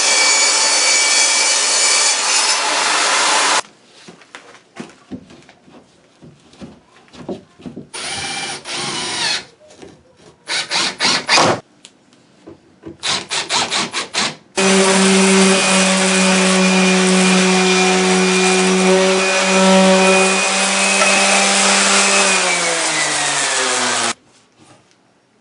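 Electric power tool working plywood: a run of a few seconds, then short on-off trigger bursts, then a long steady run with a clear motor hum whose pitch drops as the motor slows just before it stops.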